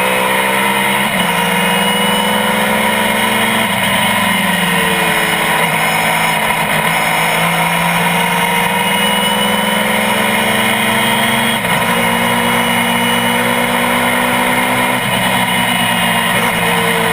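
GT-1 class road-racing car's engine running hard, its pitch climbing and falling with the revs and dropping abruptly at several gear changes.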